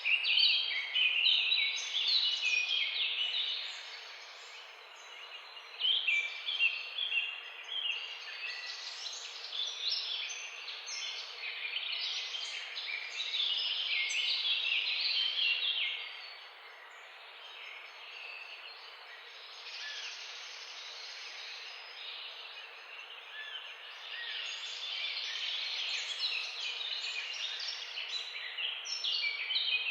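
Many small birds chirping and twittering together, a busy chorus of short high chirps over a steady background hiss. The chorus thins out for a couple of seconds early on, goes quieter for several seconds past the middle, then picks up again near the end.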